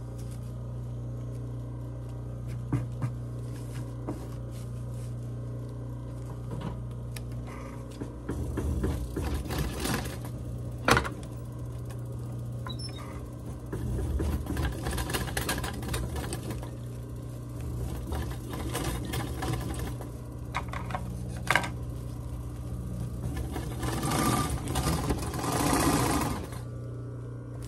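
Industrial sewing machine stitching a jacket lining in several short runs, its motor humming steadily in between. A single sharp knock comes about a third of the way through.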